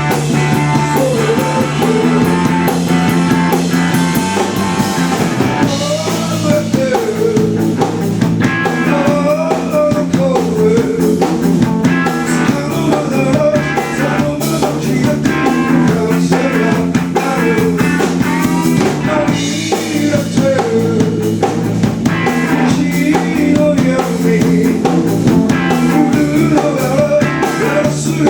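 Rock band playing live: drum kit, electric guitar and a wavering sung or lead melody over sustained lower notes, loud and continuous.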